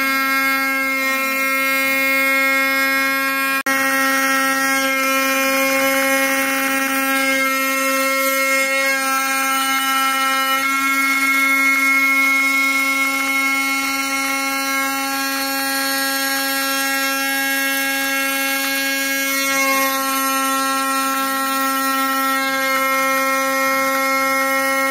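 1.5 kW water-cooled spindle on a CNC router driving a carbide end mill through aluminium plate: a steady pitched whine with the harsh noise of the cut, briefly dropping out about three and a half seconds in. These are bad noises, as the cutter slots and rubs the material instead of cutting it cleanly, heating the workpiece.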